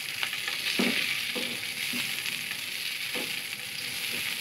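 Boiled potato pieces sizzling as they shallow-fry in oil in a non-stick frying pan, with a few short scrapes and knocks of a silicone spatula turning them.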